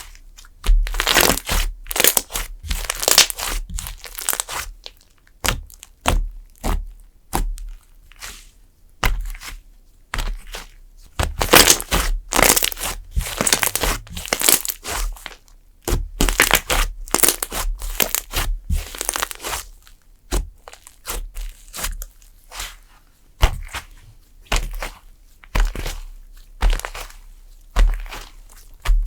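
Clay slime being squeezed, pressed and stretched by hand, making a run of irregular short squishes and snapping pops, with brief quiet gaps between them.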